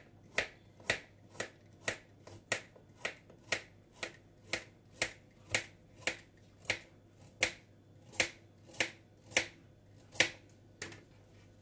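Knife chopping carrots on a cutting board: a sharp knock about twice a second, steady, stopping shortly before the end.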